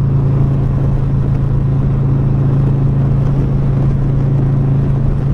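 Motorcycle engine running at a steady cruise, a constant low drone, with wind rushing over the microphone.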